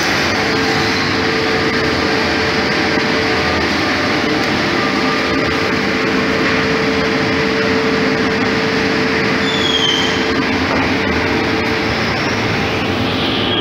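Woodworking machinery running steadily: even mechanical noise with a constant hum over it.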